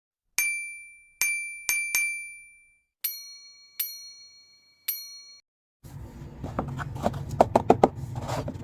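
Seven bright bell-like dings: four in the first three seconds, then three at a different pitch, each ringing out. From about six seconds in they give way to clicking, rustling handling noise over a low hum.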